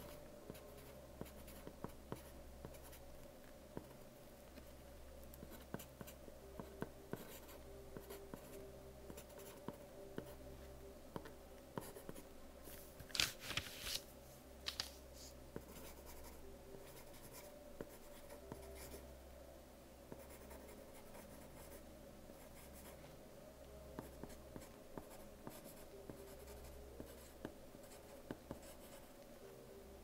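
Soft lead pencil writing on paper: a quiet, irregular run of short scratches and strokes, with a louder burst of scratching about thirteen seconds in.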